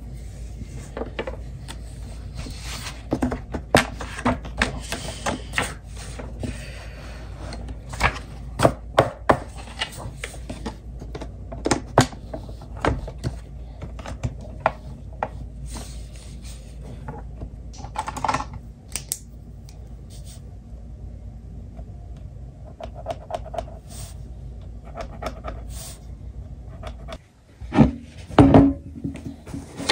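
Westcott CarboTitanium sliding paper trimmer cutting sheets of paper: the cutter head clicks and scrapes along its rail, and paper is shuffled and tapped on the table, over a steady low hum. About 27 seconds in the hum stops and a few louder knocks come as a clear plastic tub is handled.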